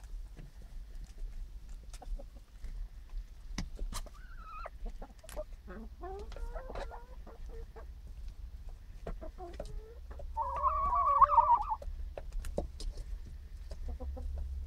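Hens clucking and calling while they peck feed from a metal pot, with many sharp taps of beaks. A louder, drawn-out call comes about ten seconds in.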